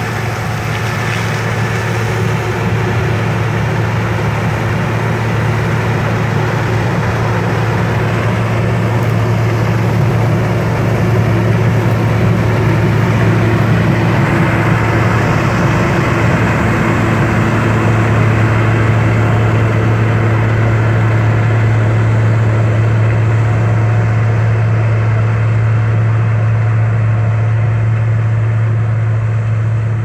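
Claas Mega combine harvester working in standing corn: a steady deep engine drone with the dense rushing noise of the header and threshing. It grows a little louder over the first several seconds, then holds steady.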